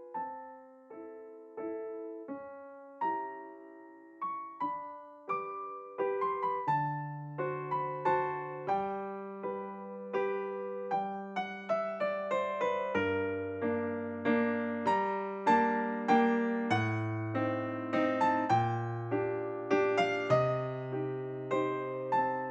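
Background music played on piano or electric piano: a sparse melody of single struck notes that fills out with low sustained bass notes and gets louder about a third of the way in.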